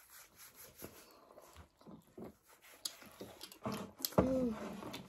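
Quiet eating at a table: soft chewing and small clicks of plates and glasses, then a short pitched voice sound about four seconds in.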